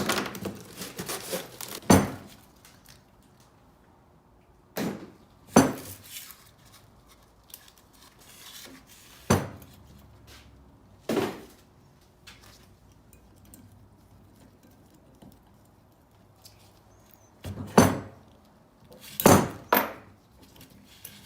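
Metal parts and tools clinking and knocking as they are handled and set down, about nine sharp, irregular knocks with quiet stretches between.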